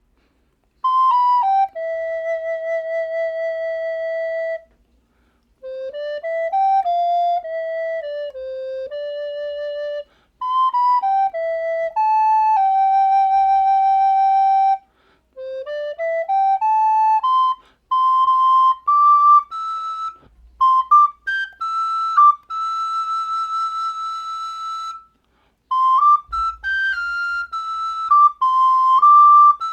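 Solo soprano recorder playing a song melody, one note at a time, in phrases with long held notes and short breaks for breath between them.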